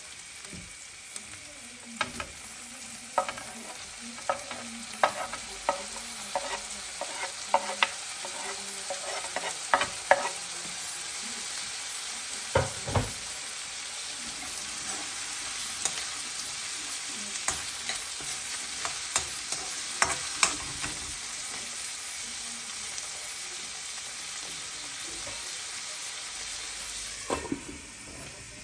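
Chopped ox heart and tomatoes frying in oil in a non-stick frying pan: a steady sizzle, with a spoon stirring and clicking against the pan many times. Near the end a lid goes on with a knock, and the sizzle turns muffled and quieter.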